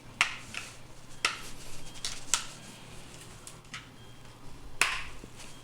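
Irregular sharp clicks and clacks of an Action Army AAP01 gas airsoft pistol being handled, about seven in all, its parts knocking and clicking.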